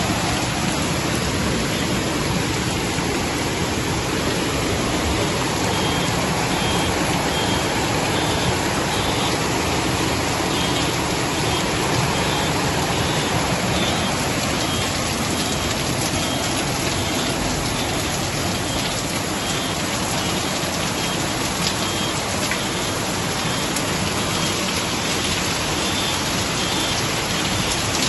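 Heavy rain pouring down together with muddy floodwater rushing along a street: a dense, steady wash of noise with no let-up.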